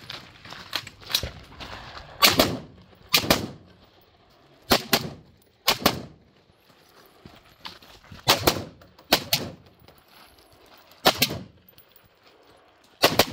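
Semi-automatic AR-style rifle fired at targets: about eight loud shots, mostly in pairs about a second apart with pauses between, each with a short echo. A few fainter cracks fall in between.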